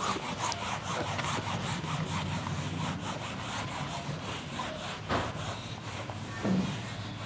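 Whiteboard eraser rubbed hard across a whiteboard in quick, repeated back-and-forth strokes, wiping off marker writing.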